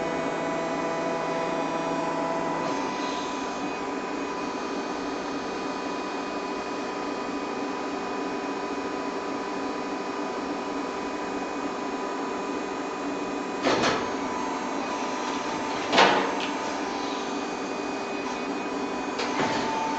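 Makplast 350 g hydraulic plastic injection molding machine running: a steady hum of its hydraulic pump with several tones, one of which drops out about three seconds in. Two sharp clunks a couple of seconds apart past the middle, the second the loudest, and another near the end, as the clamp opens and closes the mold through a molding cycle.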